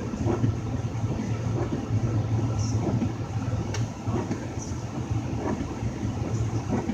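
2000 Lincoln Navigator's 5.4-litre V8 running steadily at a raised idle of about 1500 rpm, with the blower fans on high. This is a charging-system load test with every electrical accessory on, which the owner takes as showing a bad alternator.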